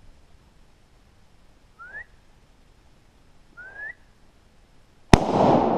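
Two short rising whistles a couple of seconds apart, then near the end a single loud rifle shot that echoes and fades slowly.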